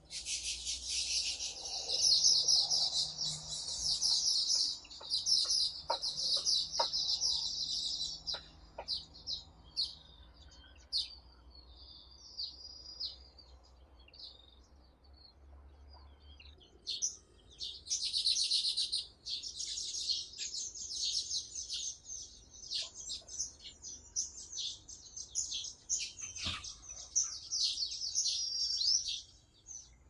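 Weaver birds chattering: dense, rapid, high-pitched twittering for the first several seconds, then scattered single chirps, then another long bout of dense twittering from a little past the middle until near the end.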